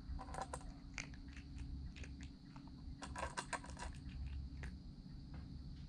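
A calico cat eating from a stainless steel bowl: quick crunches of chewing and small clicks against the metal, coming in two clusters, about a quarter-second in and again around three seconds in.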